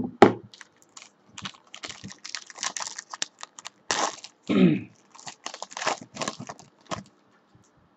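Gold foil wrapper of a trading-card pack crinkling and tearing as it is pulled open, mixed with many small clicks and scrapes of a cardboard card box being handled.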